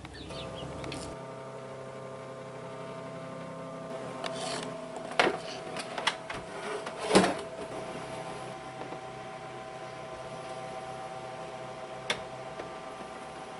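Tabletop egg incubators humming steadily, several held tones at once. Over the hum come a few plastic knocks and clatters as the incubator and its egg-turning tray are handled, the loudest about seven seconds in, and a single click near the end.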